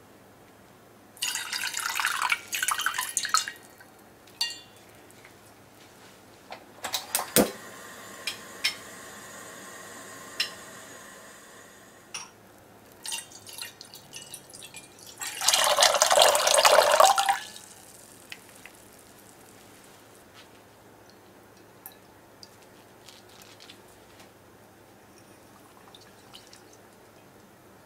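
Liquids poured into a stainless steel saucepan. Cooking sake splashes in for about two seconds shortly after the start, and later a stream of dashi pours in for about two seconds, the loudest sound. Scattered knocks come in between, and faint small ticks come near the end.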